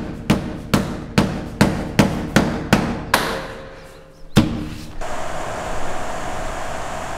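A fist banging on a door, about eight quick blows in a row that grow weaker, then one harder blow. After that a steady outdoor rushing noise, like wind, takes over.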